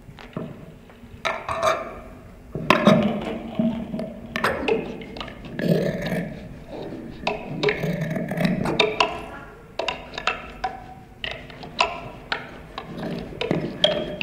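Amplified small objects being scraped, plucked and tapped in a live experimental improvisation: irregular clicks, rattles and scrapes with low hum-like tones swelling now and then.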